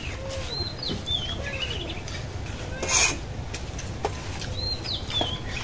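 Birds calling around a rural yard: short curving chirps and clucking calls, repeated several times. There is a brief sharp noise about three seconds in.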